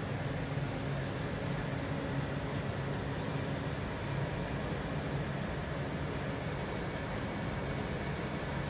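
Steady hum of a powered-up Pfauter PE 150 CNC gear hobbing machine: a constant low drone with an even hiss over it and a faint high whine that comes and goes.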